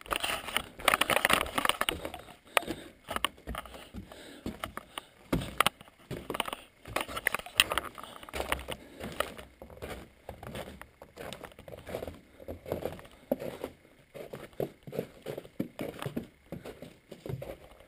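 Footsteps on wooden stairs and a wooden boardwalk: an uneven run of knocks and scuffs, with rustle from handling the camera.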